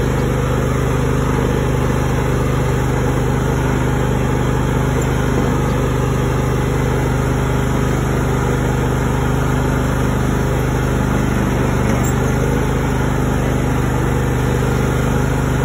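John Deere L130 riding lawn tractor's 23 hp V-twin engine running at a steady speed as the tractor drives along.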